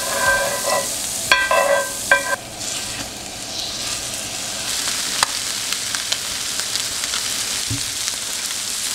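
Butter and seasoned striped bass fillets sizzling in a very hot cast iron skillet as the fish is blackened, with a metal spatula scraping the pan at first. A few short ringing tones sound in the first couple of seconds.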